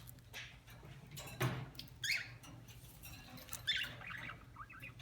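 Budgerigar giving short, high chirps, a falling one about two seconds in and a quick cluster near the end, with a single soft knock about one and a half seconds in.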